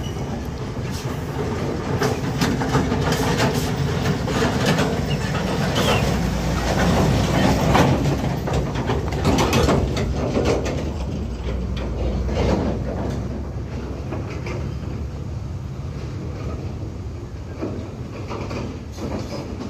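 Hino diesel tractor unit with an empty flatbed trailer passing close by on a rough dirt road: the engine running and the empty trailer rattling and clanking over the bumps, loudest about eight seconds in and then fading.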